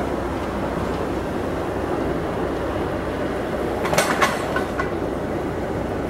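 Rail-delivery work train moving slowly while long steel rails slide off its end over roller trolleys: a steady rumble, with a short cluster of sharp metallic clanks about four seconds in.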